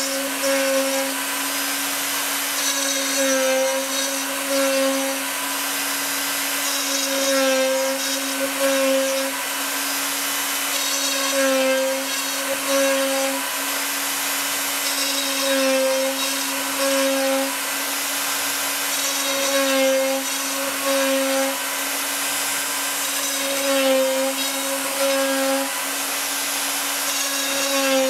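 Cybermation Autograph Multicutter 8000 CNC router running: a steady motor whine over a hiss, swelling in a repeating pattern about every four seconds as the machine works through the same motion again and again.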